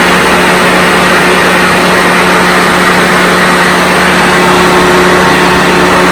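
Hoover Senior upright vacuum cleaner running: a steady rush of air with a constant motor hum. It is exceptionally noisy, which the owner suspects comes from an out-of-balance brush roll.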